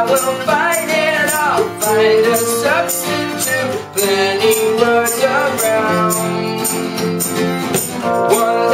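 A band playing a song: a voice singing over guitar, with a steady high percussion beat like a tambourine about twice a second.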